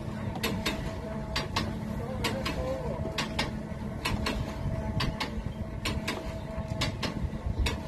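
Wooden machinery of a paltrok wind sawmill knocking as its sails turn: pairs of sharp clicks about once a second over a steady hum.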